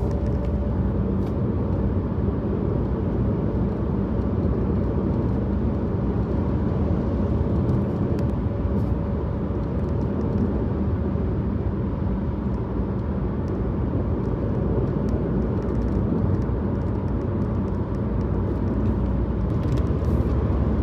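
Car driving along a highway: steady engine and tyre-on-road noise, with the low rumble growing a little louder near the end.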